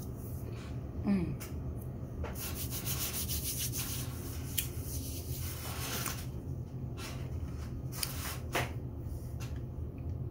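Irregular rubbing and scraping sounds close to the microphone over a steady low hum, with a short falling vocal hum about a second in.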